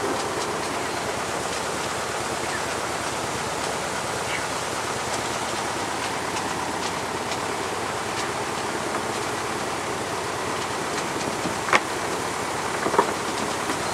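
Steady rush of water churning in a lock chamber, with two sharp knocks near the end.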